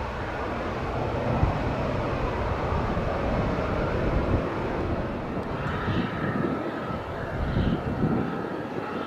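Jet airliner engines running at low taxi power: a steady rumble and roar. From a little past halfway a faint steady whine joins in.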